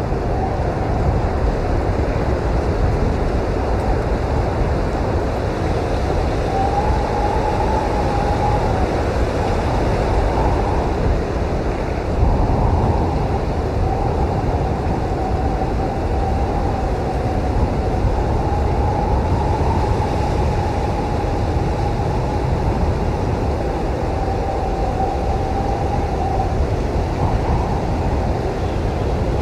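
Blizzard wind blowing steadily with a deep rumble, and a faint whistling howl that wavers in pitch.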